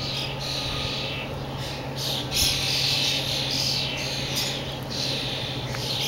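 Birds giving harsh, raspy squawking calls over and over, about one or two a second.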